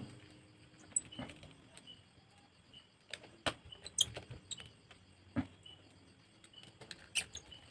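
Scattered light clicks and taps of small tools and parts being handled on a phone under repair, irregular and a second or so apart, a few louder near the middle and near the end.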